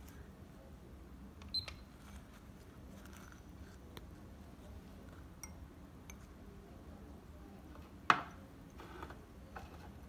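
Quiet room tone with a few small clicks and taps. A short click with a brief high beep comes about a second and a half in, and a sharp click about eight seconds in is the loudest sound.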